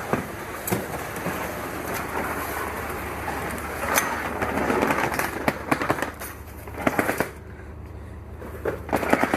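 Hard wheels rolling over rough ground with rattles and scattered knocks, stopping suddenly about seven seconds in, then a few more knocks.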